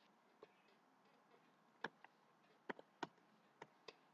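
Faint, irregular computer keyboard keystrokes, about eight separate clicks, some in quick pairs.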